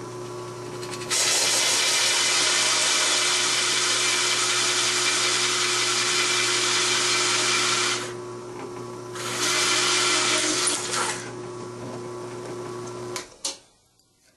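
A hole saw driven by a drill, cutting into oak. The motor hums steadily and the cut turns loud about a second in, eases off after about eight seconds, and bites again briefly. Then the motor runs free and stops shortly before the end.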